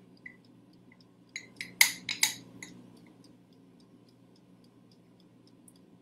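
A utensil clinks and scrapes against a stainless steel mixing bowl and jar in a few sharp strokes between about one and a half and two and a half seconds in, as tahini is spooned in. Under it runs a steady fast ticking, about four ticks a second, like a mechanical timer.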